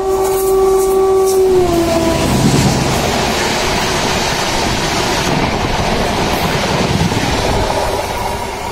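Express train passing at speed: its horn sounds a long blast that slides down in pitch about a second and a half in as the locomotive goes by, then the loud rush of its coaches running past fills the rest.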